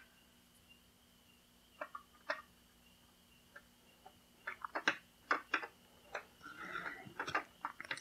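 Small plastic clicks and taps as the red plastic missiles are pressed back onto the G.I. Joe Cobra Stinger toy's missile turret. A couple of clicks come about two seconds in, then a quicker run of clicks in the second half, with a faint rustle of handling near the end.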